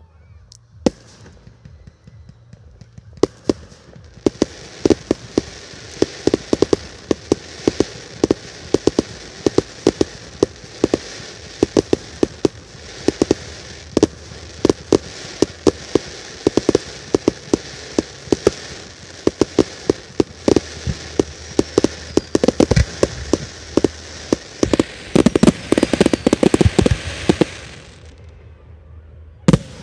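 Fireworks display: a long, rapid string of sharp bangs from bursting shells over a steady hiss. The bangs thicken into a dense, loud cluster near the end, then the hiss stops and a few more bangs follow.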